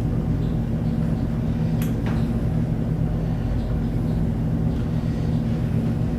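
A steady low hum made of several even tones, with two short sharp clicks about two seconds in from a wrench working a toilet hold-down bolt.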